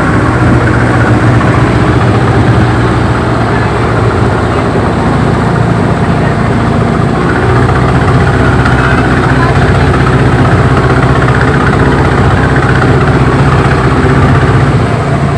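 Tourist passenger boat's engine running steadily with a low hum.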